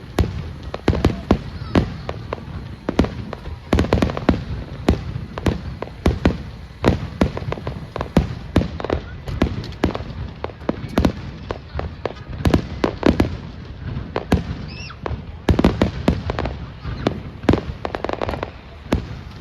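Fireworks display: a rapid, irregular barrage of bangs and crackles, several a second, without a break.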